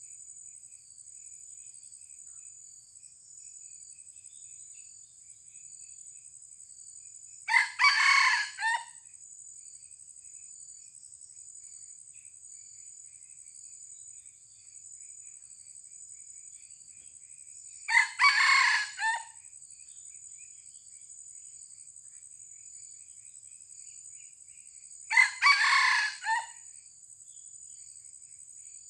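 Red junglefowl rooster crowing three times, several seconds apart. Each crow is short and clipped, in two or three parts, over a steady high insect drone.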